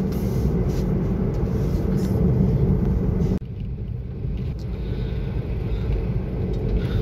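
Steady low engine and road rumble inside the cabin of a Maruti Suzuki Wagon R with its 1-litre K10 engine, cruising. The sound changes abruptly about three and a half seconds in and then carries on as a similar steady rumble.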